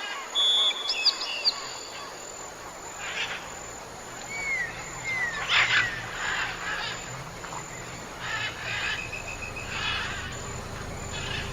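Several wild birds calling and singing: short chirps, slurred whistles and quick trills, with a loud whistled note near the start and a loud burst of chirping about halfway through, over a low steady hum.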